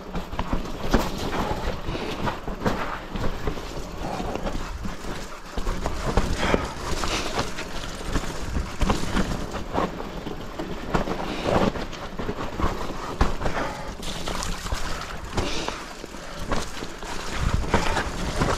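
Mountain bike descending a dirt forest trail: tyres rolling over dirt and roots with frequent knocks and rattles as the bike hits bumps, over a steady low rumble of wind on the microphone.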